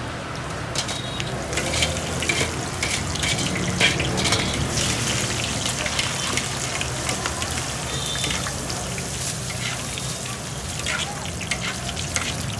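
Chicken skin deep-frying in hot oil: a steady sizzle thick with small crackles and pops, over a low steady hum.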